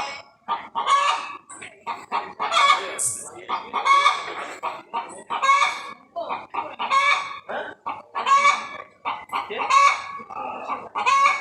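Chicken clucking loudly and repeatedly, with short calls coming about once every half second to a second, the agitated cackling typical of a hen alarmed by a predator at her nest.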